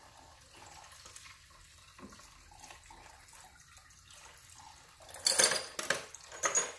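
Evapo-Rust solution pouring from a container through a funnel, a faint trickle. About five seconds in there is a burst of loud metallic clattering as the bolts in the container shift and clink together.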